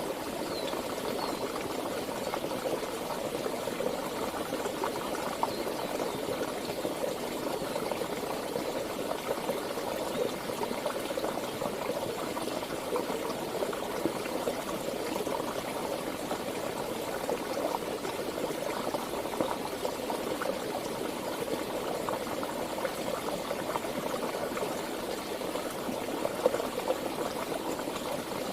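Stream water flowing steadily, an even unbroken rush with no pauses.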